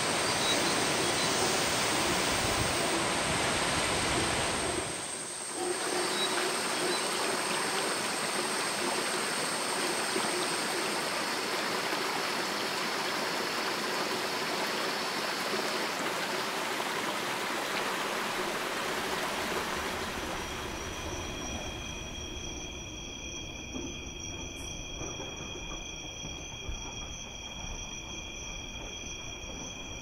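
Rushing water, a steady rush like a waterfall or fast stream, dipping briefly about five seconds in. About twenty seconds in it fades out and gives way to insects calling in several steady high tones.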